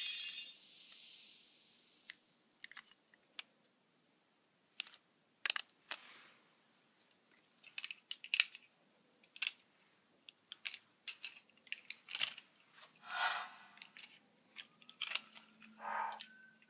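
Small hard plastic parts being handled: scattered sharp clicks and knocks, with a brief rustle of packaging in the middle and another near the end.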